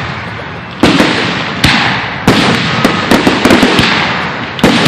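Aerial fireworks shells bursting one after another, sharp bangs about every second with a cluster of quicker reports near the middle, each followed by a long crackling, echoing decay.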